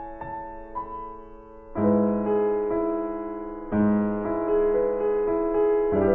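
Soft piano music playing slow sustained chords, with a fuller chord coming in about two seconds in and again near four seconds.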